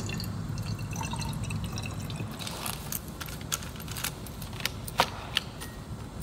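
Water pouring from a plastic bottle into a glass bottle as it fills. From about halfway through, several sharp light clicks and taps follow.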